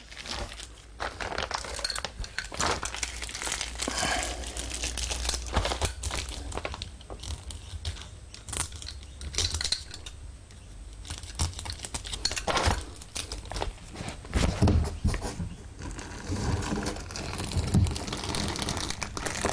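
Clear plastic bag crinkling and rustling as termite bait material is handled, with irregular small crackles and a few soft handling knocks in the second half.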